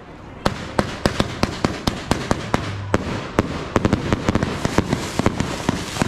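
Fireworks going off in rapid, irregular succession: a string of sharp bangs that start about half a second in and come faster and closer together in the second half, several a second.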